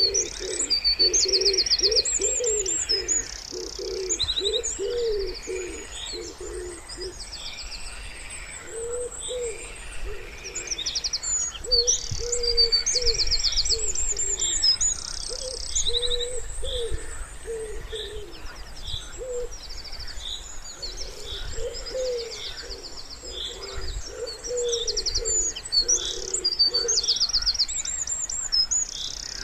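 Wood pigeon cooing in repeated phrases of short, low notes, over the high, rapid trills and chirps of small songbirds singing.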